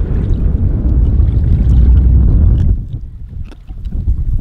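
Wind buffeting the microphone: a loud, low, steady rumble that eases off for about a second past halfway, with a few faint ticks.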